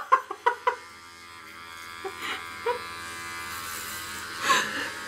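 Electric hair clippers buzzing steadily as they shave hair close to the scalp, with a few brief sharp sounds near the start.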